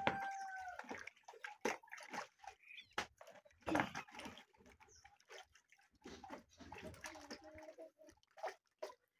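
Pumpkin pieces being washed by hand in a plastic bucket of water: irregular sloshing and splashing with short knocks as the pieces are handled.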